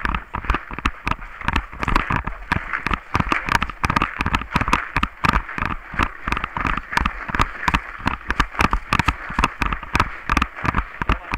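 Paintball markers firing rapidly, a steady stream of sharp pops several times a second, over a constant hiss.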